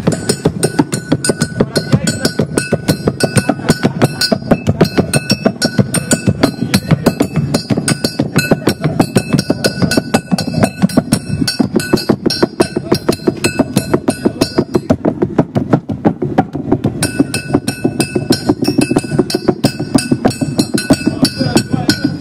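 Rhythmic percussion music: fast, even strikes, about four or five a second, with a clinking ring over them. The high clinks drop out for a couple of seconds about two-thirds of the way through.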